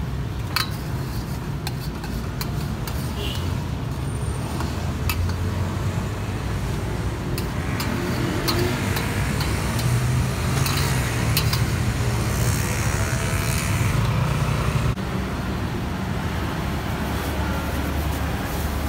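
Low, steady rumble of road traffic, swelling in the middle as a heavier vehicle passes and dropping suddenly near the end. Over it, a metal ladle clinks now and then against a steel wok as seblak is stirred.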